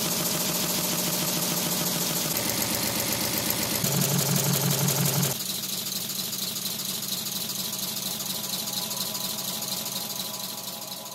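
Multi-cylinder Lego pneumatic engines running fast on compressed air: a steady, rapid chuffing of exhausting air with a hiss and the clatter of plastic parts. The sound changes abruptly a few times, about 2, 4 and 5½ seconds in, as a different engine runs.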